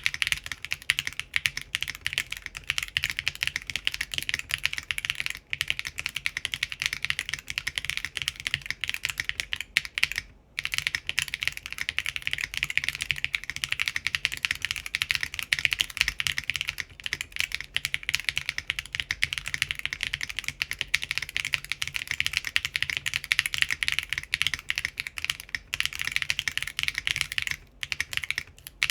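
Continuous fast typing on a Typface Kafka mechanical keyboard with Geon RAW HE Hall-effect switches, ABS doubleshot keycaps and an aluminum plate in o-ring gasket mount. The keystrokes come as a dense stream of clicks, with a brief pause about ten seconds in.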